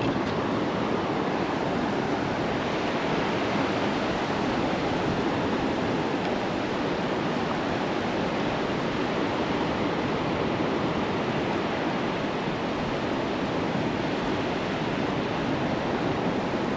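Gulf of Mexico surf breaking on the beach: a steady, continuous rush of waves, with some wind mixed in.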